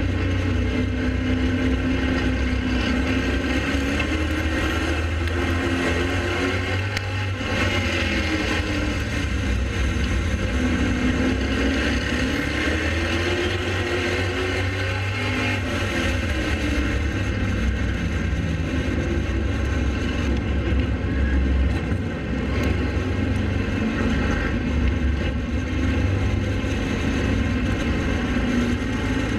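Pro late model race car's V8 engine running at racing speed, its pitch rising and falling over and over as it accelerates and lifts.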